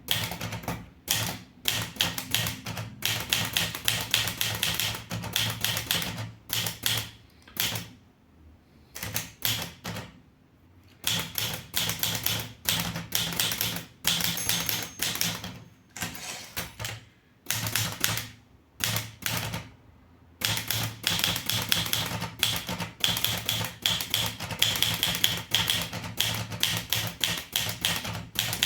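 Underwood 315 typewriter being typed on: rapid runs of sharp keystrokes, broken by two short pauses about eight and nineteen seconds in.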